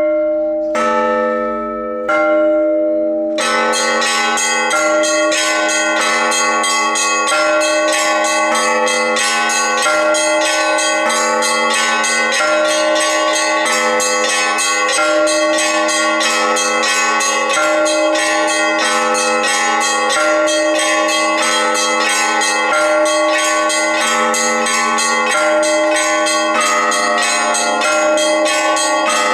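Orthodox monastery bells: a few separate strokes ring out, then about three seconds in the full set of bells breaks into a peal, many bells of different pitch struck in a quick, steady rhythm.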